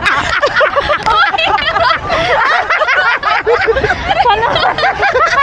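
Several people laughing and giggling together, voices overlapping, with crowd chatter behind.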